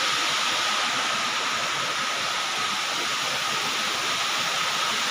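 Waterfall and stream water rushing, a steady, even noise without breaks.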